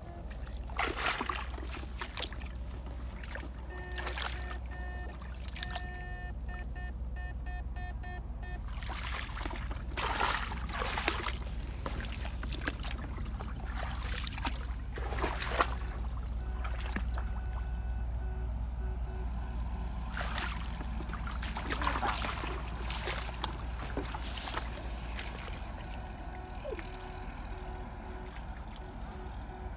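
Steady low hum of a backpack electrofishing rig, with brushing and swishing strokes every few seconds as the electrode pole is swept through grass and shallow water. A faint repeating beep comes and goes.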